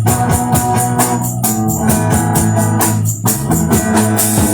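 Reggae band playing an instrumental passage live: acoustic guitar, bass guitar, drum kit and percussion keeping a steady beat, with long held organ-like notes over it.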